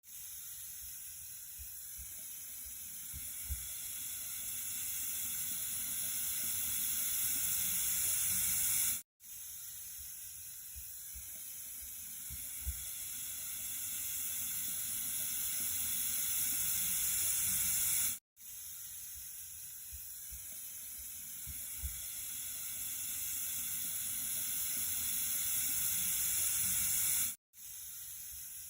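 Flowing water, a hissy rush heaviest in the treble, looped: the same roughly nine-second stretch repeats three times, each slowly growing louder, with a brief cut to silence between repeats and a small tick a few seconds into each.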